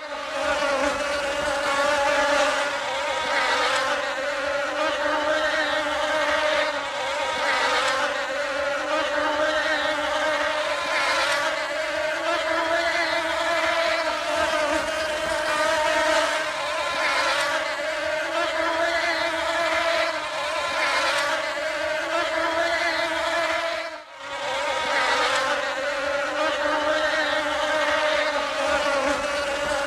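Bee buzzing in flight: a steady, wavering drone that briefly drops out about 24 seconds in, then resumes.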